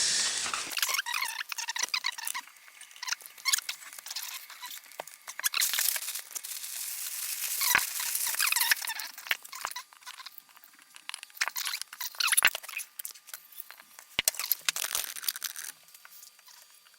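Plastic packaging rustling and crinkling, with scattered small clicks and knocks as keyboard parts and screws are handled. It comes in uneven bursts and quietens near the end.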